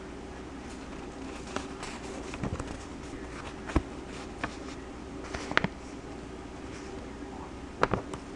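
Scattered light clicks and taps from objects being handled on a table, over a steady low electrical hum.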